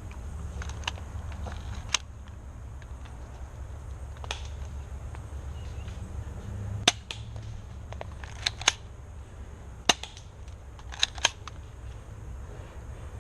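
Airsoft pistols firing single shots as sharp snaps, about nine in all at uneven intervals, some in quick pairs.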